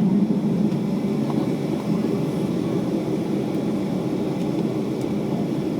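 Boeing 757-200 airliner cabin noise heard from a window seat: a steady low rumble from the jet engines and airframe.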